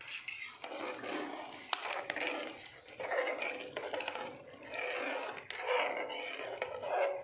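A metal ladle stirring rice, tomato masala and water in a pressure cooker: the liquid sloshes in swells, with a few clinks of the ladle against the pot.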